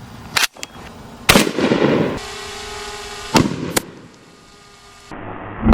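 Shots from a 7.62x39 rifle fired into a stack of laptops: several sharp gunshot cracks, the loudest about a second and a half in, with two more in quick succession past the middle.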